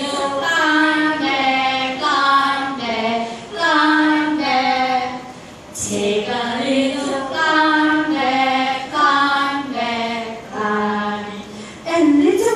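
Women singing a simple action-song tune together into a microphone, in short phrases of held notes with a brief break about halfway through.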